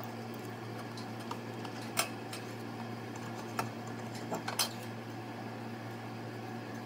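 Light metal clicks and clinks of tools and hardware as the kiln's porcelain element terminal block is being taken off, the sharpest about two seconds in and again near the middle, over a steady low hum.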